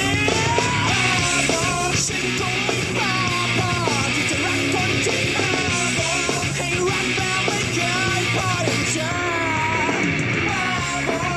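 A rock song playing, with a singer's voice over a full, loud band.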